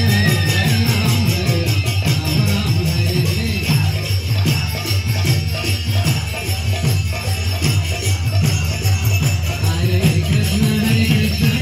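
Devotional kirtan music: small hand cymbals jingling in a steady rhythm over low, sustained tones.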